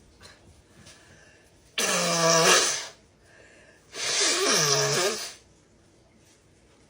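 A person blowing their nose hard twice, each blow a loud, honking burst about a second long. The second honk's pitch dips and rises again.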